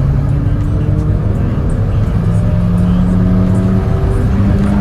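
Car driving, heard from inside the cabin: steady engine and road rumble, with the engine note slowly rising as it speeds up.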